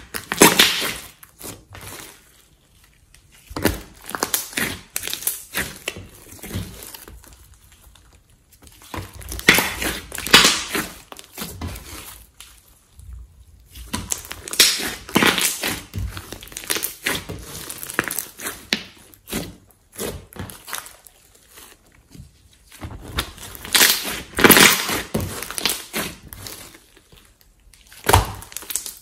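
Glossy slime mixed with clay being squished, stretched and folded by hand: spells of dense sticky crackling a few seconds long, with short quiet pauses between.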